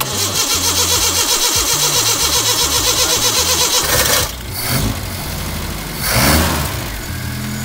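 Nissan 1400 bakkie's four-cylinder A14 engine cranking on the starter motor for about four seconds on its freshly fitted carburettor, then catching, revving up once and settling into a steady idle.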